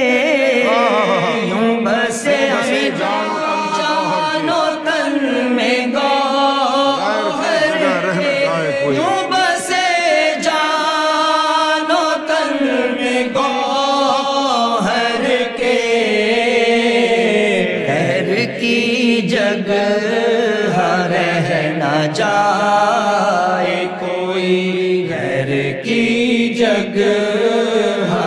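A man chanting an Urdu devotional qasida, a Sufi praise poem, in long held melodic lines that bend and glide between notes.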